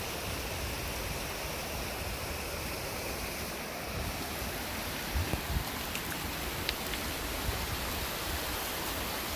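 Shallow river rushing over rocks, a steady, even rush of water, with a few low thumps a little past halfway.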